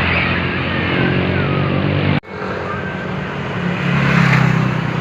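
Tour bus diesel engine running close by, with a steady low drone and road noise. The sound breaks off for an instant about two seconds in, and the engine grows louder again near the end.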